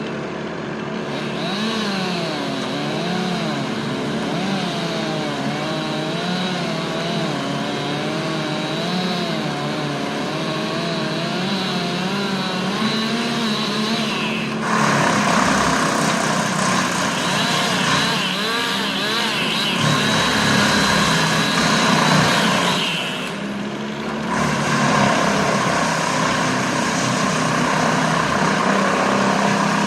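Gasoline chainsaw running during tree felling, its engine pitch wavering up and down. From about halfway it becomes louder and harsher, as when the saw is cutting into wood at full throttle.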